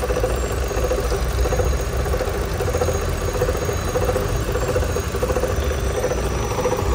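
Chevrolet Cruze 1.8-litre four-cylinder petrol engine idling with a steady hum and a repeating noise about twice a second, which the mechanic traces to the water pump.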